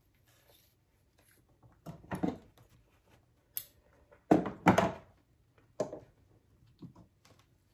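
A few short knocks and rustles of small things being handled and set down on a table, the two loudest in quick succession about halfway through.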